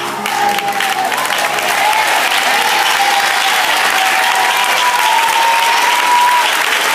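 Church congregation applauding, with voices calling out over the clapping.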